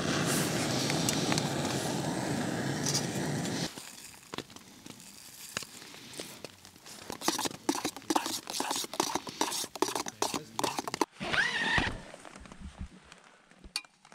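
Small gas canister stove burning with a steady roar for about the first four seconds, then cutting off. After that, a spoon stirring and clinking against the sides of a metal mug in quick, irregular taps.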